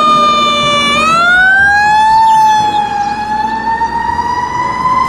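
Fire truck siren wailing in one long tone that dips slightly, rises about a second in, then climbs slowly again after a small sag, over a low rumble of street noise.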